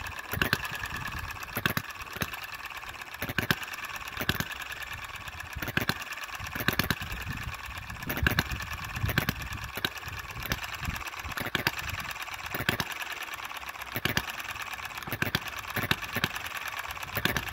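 Enjomor model hit-and-miss petrol engine running, governed by a weakened governor spring: sharp firing pops about once a second at uneven spacing over a steady light mechanical clatter.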